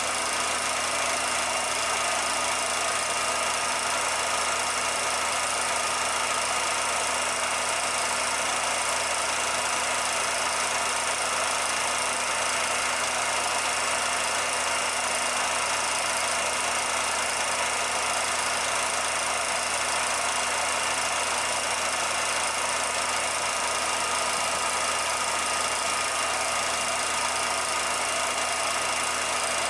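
Steady mechanical whirring and hiss of a 16mm film projector running, with no sound from the silent film itself.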